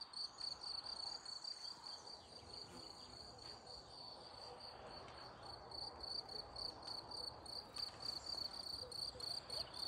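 Crickets chirping, a faint, high, evenly repeating pulse that keeps going steadily, over a faint hiss.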